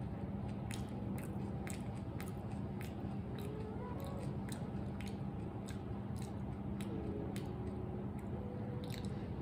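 A person chewing crispy fried chicken close to the microphone, with crisp crunches at irregular intervals over a steady low hum.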